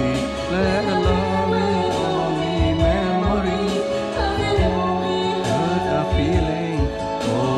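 Karaoke: a voice singing over a backing track of sustained tones, with an occasional percussion hit.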